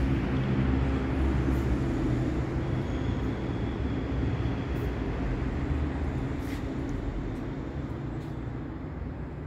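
Steady low mechanical rumble with several held low tones, slowly fading toward the end.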